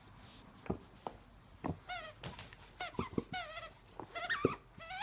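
A dog chewing a spiky rubber ball toy: teeth clicking and knocking on the rubber, with short high squeaks repeating from about two seconds in.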